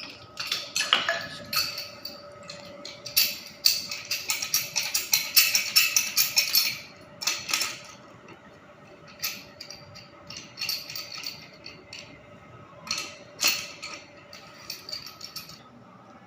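Metal tools clinking and scraping against pipe fittings while a fitting is worked loose from a water heater's circulating pump. There is a dense run of rapid clicks about three seconds in and scattered clinks later, over a faint steady hum.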